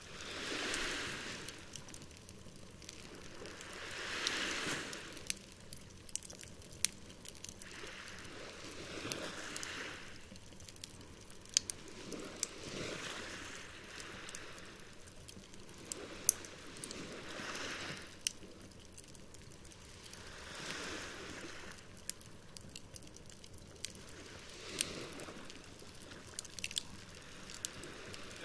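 Campfire crackling with scattered sharp pops, over waves washing ashore in slow swells about every four seconds.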